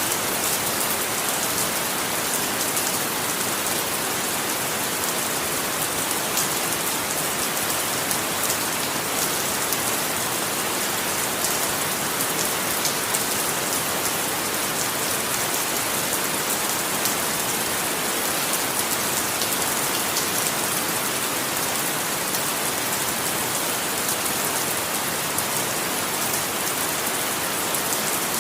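Steady rain falling and pattering on a surface, an even hiss of countless drops with fine scattered taps, unchanging throughout.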